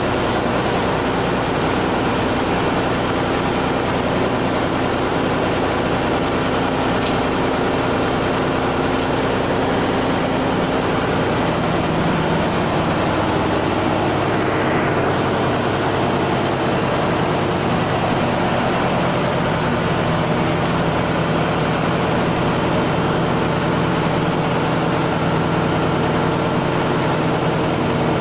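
Ship's engine-room machinery running steadily: a loud, even drone with several constant hum tones.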